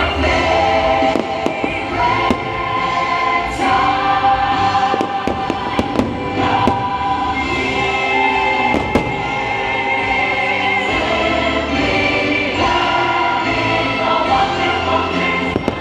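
Fireworks bursting in scattered sharp bangs over a Christmas fireworks-show soundtrack of a choir singing with music.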